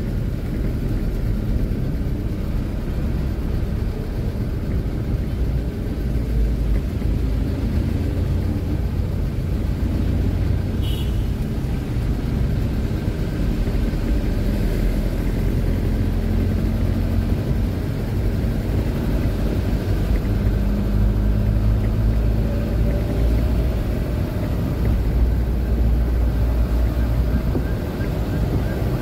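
Truck's engine running and steady low road rumble while driving, heard from inside the cab. A faint siren begins near the end.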